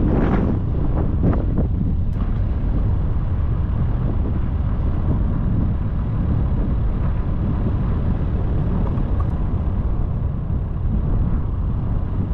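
Strong wind buffeting the microphone, a steady heavy rumble with a few brief knocks in the first two seconds.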